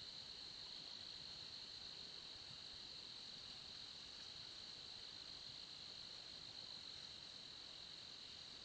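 Faint, steady chorus of insects: one continuous high-pitched drone with no breaks.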